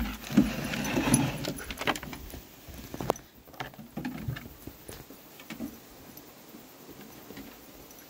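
Rustling and knocks in the first two seconds, then scattered light clicks and taps: a dog's claws on wooden decking.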